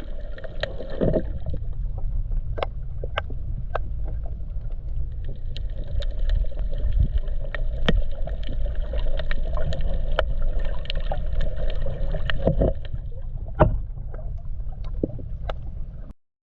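Steady low water rumble with scattered sharp clicks and a few short gurgles; the sound cuts off suddenly near the end.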